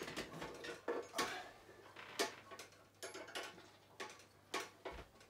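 Irregular metal clicks and light knocks as a hook and hanging scale are handled and hooked up to a cord.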